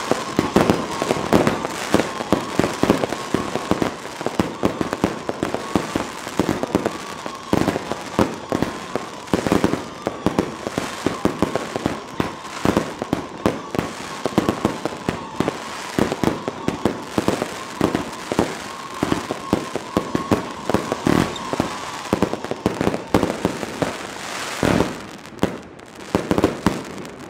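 New Year's Eve fireworks and firecrackers going off all around in a dense, continuous barrage, with bangs and crackles several times a second. A faint steady tone runs underneath.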